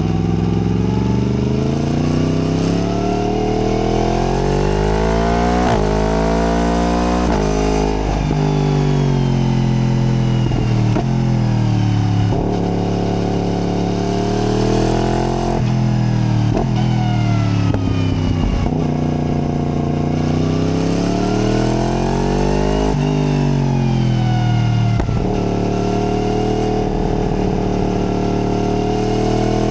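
Yamaha MT-10's crossplane inline-four engine revving hard and dropping off again and again as the bike accelerates through the gears and slows for bends. The pitch climbs steadily, breaks off suddenly at each shift, and falls away when the throttle is closed.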